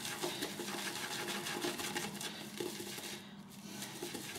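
RazoRock Plissoft synthetic shaving brush whipping soap into lather in a glass bowl: a fast, even, wet swishing and ticking of bristles against the bowl, briefly quieter about three seconds in.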